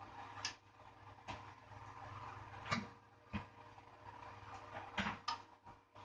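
Scattered light clicks and taps of small tools and parts being handled on a work surface, about six at irregular intervals, the sharpest near the middle and about five seconds in, over a faint steady hum.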